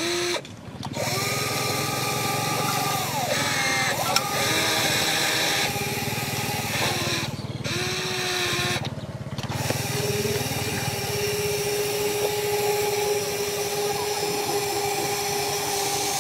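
RC excavator's small electric motors and gearboxes whining as it drives its tracks and works the boom, with the pitch shifting as the motors change. The whine stops briefly three times and runs steadily in the second half.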